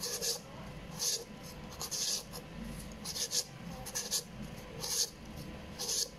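Large kitchen knife cutting into a firm peeled green papaya held in the hand, shredding it in the Thai chop-and-shave way: a crisp, hissy slicing stroke about once a second, sometimes two close together.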